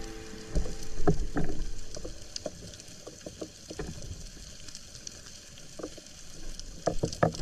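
Underwater ambience with scattered clicks and crackles throughout, with a few louder clicks near the end.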